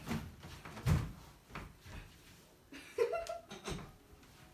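A few scattered knocks and clicks from clothes and hangers being handled on a metal drying rack, the loudest about a second in.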